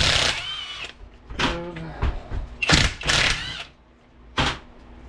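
Handheld power tool spinning out the bolts of an NP205 transfer case's front output bearing retainer, in about five short whirring bursts that wind up and down in pitch.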